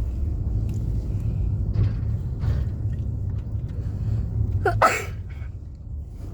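Steady low rumble of a moving vehicle, with a person's brief, loud vocal burst about five seconds in.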